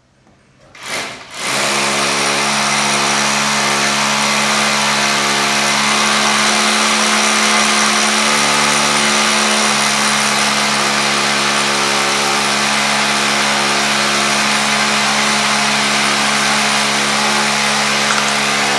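Electric power tool starting up about a second and a half in and then running continuously at a steady pitch, with a loud, even hiss over its motor hum.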